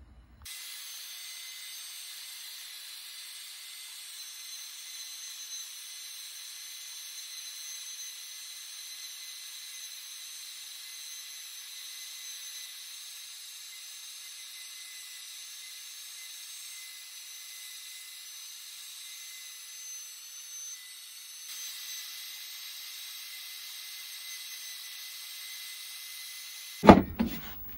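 CNC router spindle running steadily while its end mill carves letters into a wooden baseball bat: a high, even whine over hiss. It stops with a sharp knock near the end.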